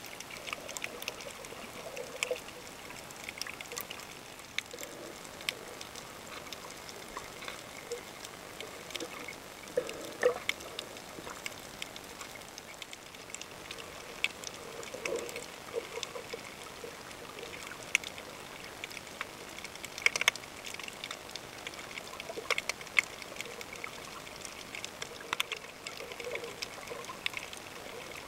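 Underwater water noise picked up by a submerged camera, with many scattered sharp clicks and crackles and occasional short low pulses.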